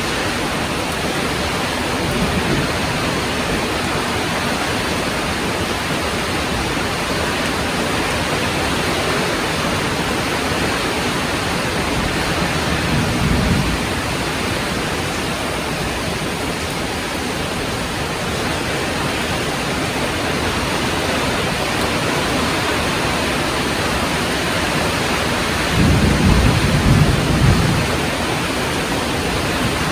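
Heavy rain falling steadily, with low rumbles of thunder: a short one about two seconds in, another around thirteen seconds in, and the loudest, lasting about two seconds, near the end.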